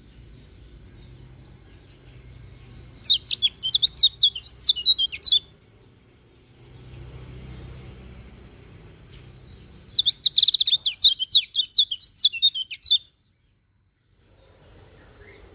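Kecial kuning (a white-eye) singing: two quick runs of high, rapid twittering notes, each lasting two to three seconds, the first about three seconds in and the second about ten seconds in.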